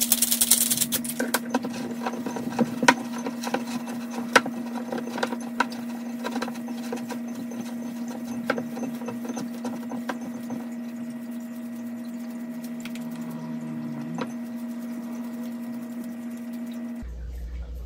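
A hand pepper grinder crackling briefly over a bowl, then hands mixing and squishing raw ground beef in a glass bowl, with scattered soft clicks and taps. A steady low hum runs underneath and cuts off near the end.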